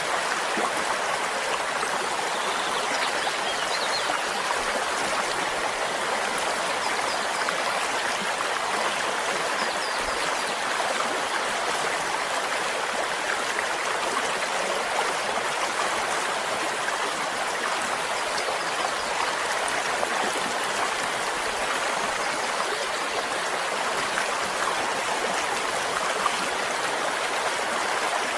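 Stream flowing: a steady, even rush of running water.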